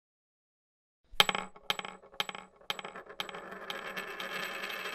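Coins dropping: after about a second of silence, five single metallic clinks land about half a second apart, then a continuous shower of coins jingling.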